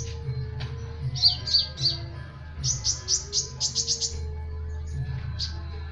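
Kolibri ninja (a sunbird) singing: sharp, high chirps in quick clusters, with a fast run of about ten chirps in the middle and a single chirp near the end. A steady low hum runs underneath.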